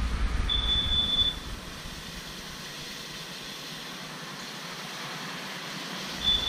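Carbon monoxide alarm chirping, a long high beep about a second in and another near the end, over a steady background rush; it is signalling carbon monoxide in the workshop from the smoky coal forge.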